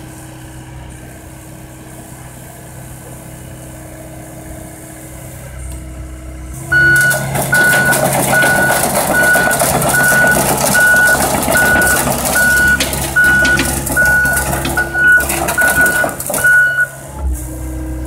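2018 John Deere 85G excavator's Yanmar diesel idling, then about seven seconds in it revs up as the machine travels on its tracks, with track clatter and the travel alarm beeping a little faster than once a second. Near the end the beeping stops and the engine settles back to idle.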